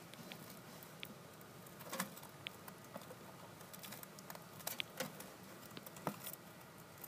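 Scattered light taps and clicks at irregular intervals, about half a dozen, over a faint steady hiss.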